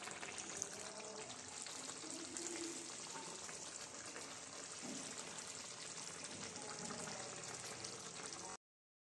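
Chicken curry simmering in a steel kadai, a faint steady sizzle; it stops abruptly near the end.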